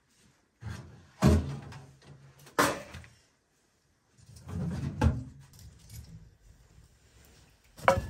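A sheet-metal wood stove being opened and tended, with a run of knocks and clanks of metal and firewood. The loudest is about a second in, and a sharp metallic clink with a brief ring comes near the end.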